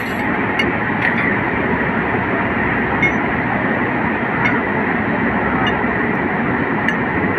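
Steady loud background noise, with a few faint metallic clicks as a ring spanner turns a bolt on the locomotive bogie's shock-absorber mounting.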